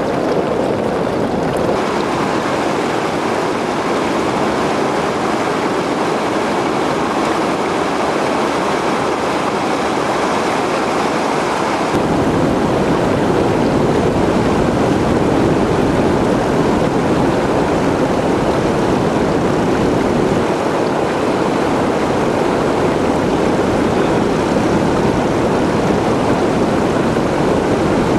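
Steady rushing noise of floodwater and wind. About twelve seconds in it turns louder and deeper, with the low rumble of a tractor driving through the flooded road and throwing up spray.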